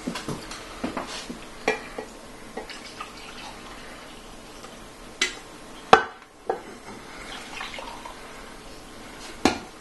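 Coffee pouring from a glass coffee-maker carafe into ceramic mugs, with scattered clinks and knocks of crockery, the sharpest about six seconds in.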